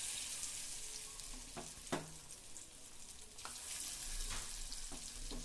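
Chicken kabab pieces, just added to hot oil in a pan, deep-frying with a steady sizzle. A few light clicks come through about a second and a half in, around two seconds in, and again later.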